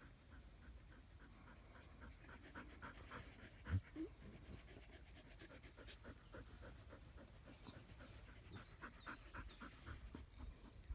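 Australian Shepherd panting faintly, quick and even, several breaths a second. A dull bump about four seconds in.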